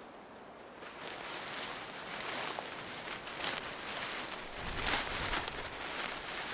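Rustling and scuffing of tarp fabric and dry heather as a tarp corner is pegged out, with a few sharp clicks and a brief low rumble about five seconds in.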